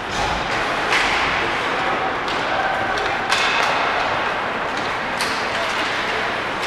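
Ice hockey play in an arena: a steady wash of skates, sticks and crowd chatter, broken by about five sharp knocks and thuds of puck, sticks and boards, the loudest about halfway through.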